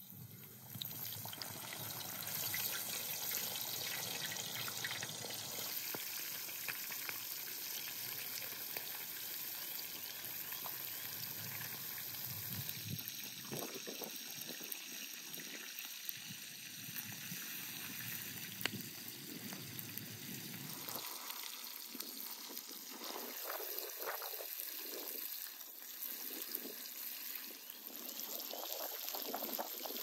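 Whole fish sizzling in hot oil in a wide shallow pan over a wood fire, a steady frying hiss that jumps up about a second in as the first fish goes into the oil.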